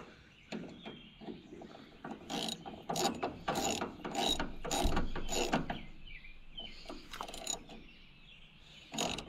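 Ratchet wrench clicking in quick runs of strokes as a nut is tightened down. The clicking is busiest in the middle, then eases off, with a single clack near the end.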